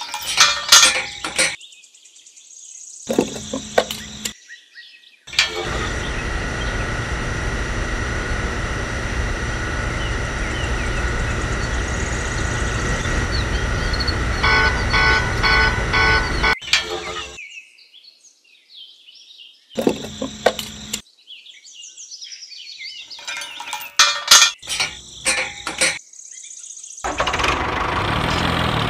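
Clicks and taps of small handmade model parts being handled. Then a steady electric hum with a couple of steady tones runs for about eleven seconds, ending in a quick run of beeps. After a pause come more clicks, and near the end a steady engine sound starts up.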